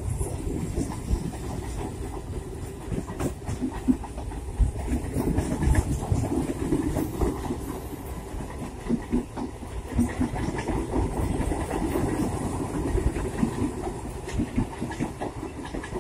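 A 12-coach Bombardier electric multiple unit passing at close range, its wheels clattering over rail joints with many irregular clicks above a steady running noise.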